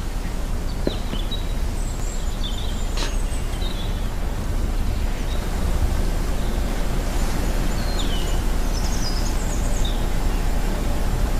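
Steady low ambient background noise, with a few faint, short, high bird chirps scattered through it and a light click about three seconds in.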